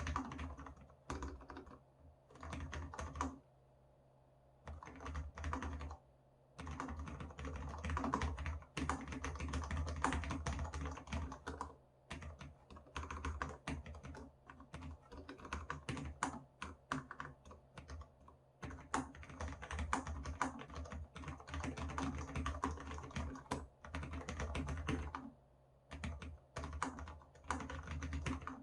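Typing on a Cherry MX Board 10.0 keyboard with low-profile Cherry MX Red linear switches, fast runs of keystrokes broken by short pauses. A low thumping from the desk underneath sounds along with the keys.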